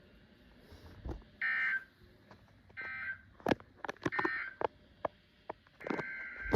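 Four short electronic tone bursts, roughly a second and a half apart, the last one longer, with sharp clicks and crackles between them.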